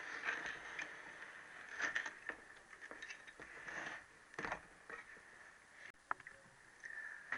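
Soft, irregular scraping and knocking of hands and metal parts as a Triumph T120R engine's aluminium crankcase is handled on the bench, with a few sharper scrapes about two and four and a half seconds in.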